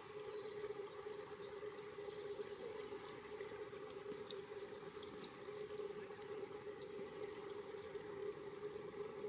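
Faint, steady rushing background noise with no distinct events.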